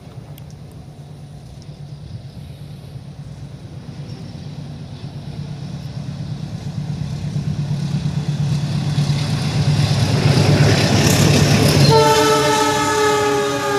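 A train approaching at speed, its diesel locomotive's engine hum and rail noise growing steadily louder; about twelve seconds in the locomotive's horn sounds, its pitch sliding slightly down as it comes past.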